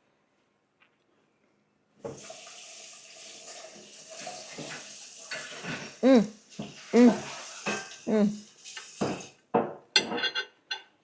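A person tasting stir-fried instant noodles: a hissing, wet slurping sound, then several loud, short wordless vocal sounds of enjoyment, with a light clink of a utensil near the end.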